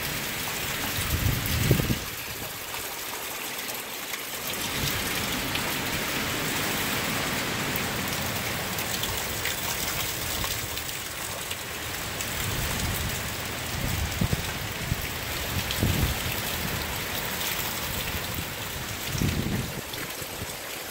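Heavy hurricane rain pouring down in a steady hiss, blown by strong wind. Now and then gusts buffet the microphone with a low rumble.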